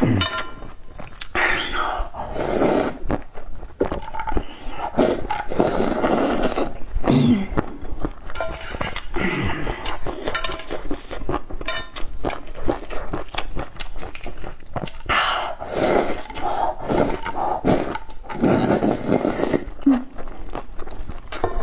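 Close-miked slurping and chewing of spicy tofu soup, with loud noisy slurps now and then, mixed with short clicks of a spoon and chopsticks against a metal bowl.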